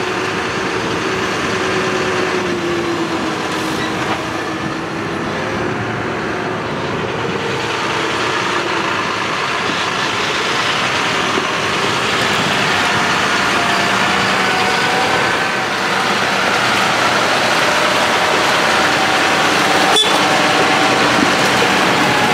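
John Deere front-loader tractor's diesel engine running steadily, its pitch drifting up and down as it drives up to and lifts round straw bales. A short sharp click near the end.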